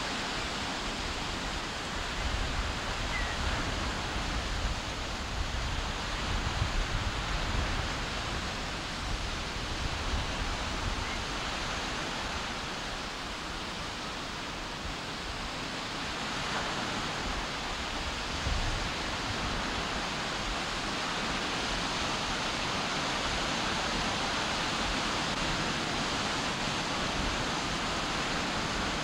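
Wind and small waves on a shore: a steady rushing noise, with gusts buffeting the microphone and rumbling for several seconds near the start and briefly again near the middle.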